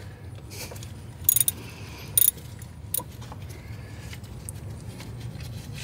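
Socket wrench with a 12 mm socket working an alternator mounting bolt loose: a few short metallic clinks and brief jangles of tool on metal, spread over several seconds.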